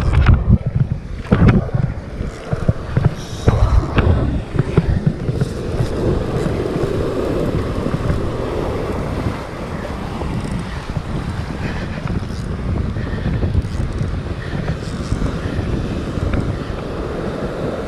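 Wind buffeting the microphone over surf breaking and washing across a rock shelf, with a few sudden bumps in the first five seconds.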